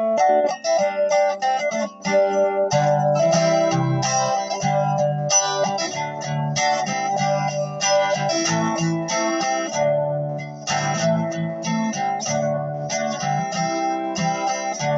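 Acoustic guitar being strummed and picked through a song, its chords and bass notes changing about once a second, with brief dips about two seconds in and near ten seconds.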